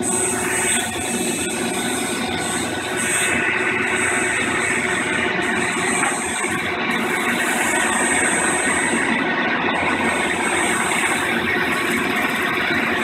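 Shop vacuum running steadily, drawing dust from a drum-sanding box on a drill press, with a thin high whine over the rushing air; it gets slightly louder about three and a half seconds in.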